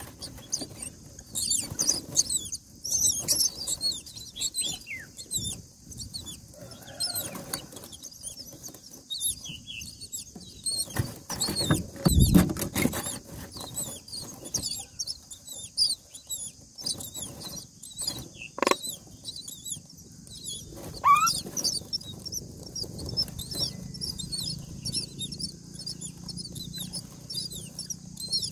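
Common myna nestlings begging with a dense stream of short, high-pitched cheeps as an adult myna feeds them in the nest box. The sound is mixed with rustling of nest straw and wing flaps, and a loud thump about halfway through.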